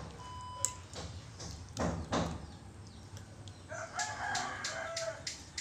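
Quiet eating sounds of a bowl of instant noodle soup being eaten with spoon and fork, with a short slurp or chew about two seconds in. Near the end a rooster crows in the background, one wavering call lasting about a second and a half.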